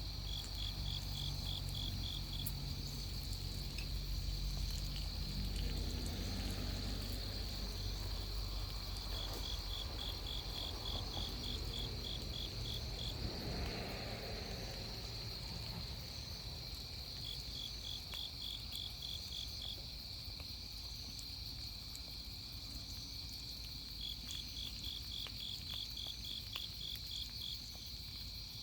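Autumn-night chorus of crickets: a steady high-pitched drone, with one cricket's pulsed trill breaking in four times, about every seven or eight seconds. Occasional faint clicks, and a brief soft rush about halfway through.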